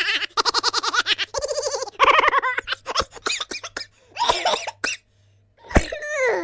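A string of short comic laughing and giggling sound effects, with quick pulsing laughs. Near the end comes a falling vocal glide.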